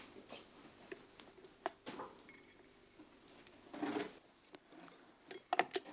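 Light kitchen handling sounds: scattered soft clicks and rustles, with a longer rustle about four seconds in and a quick run of clicks near the end.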